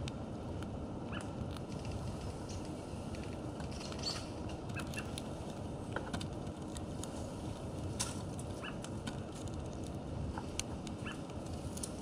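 Irregular sharp clicks and taps from a house finch pecking and cracking seed in a clear plastic window feeder. A steady low outdoor rumble runs underneath.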